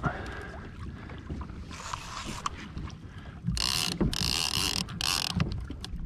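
Wind rumbling on the microphone and water around a fishing kayak, with small knocks and clicks of gear handling. In the second half come several short hissing bursts, each under a second.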